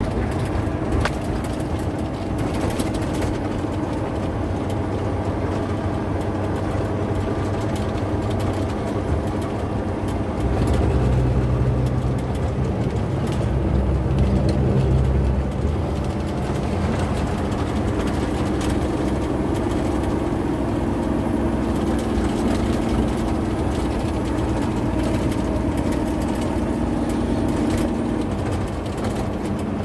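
Engine of a large truck or bus heard from inside the cab while driving, a steady drone with frequent small rattles and clicks. The engine grows louder and deeper for a few seconds about ten seconds in, then its pitch shifts higher and holds for a stretch.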